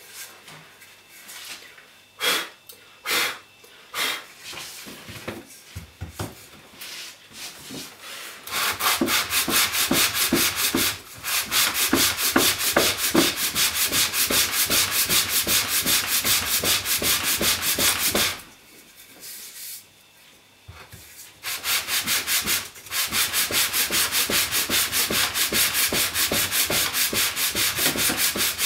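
A pine frame rubbed by hand back and forth over 240-grit sandpaper glued to a flat board: quick, even sanding strokes, several a second. The first several seconds hold only a few scattered knocks. The strokes begin about eight seconds in, stop for about three seconds past the middle, then resume.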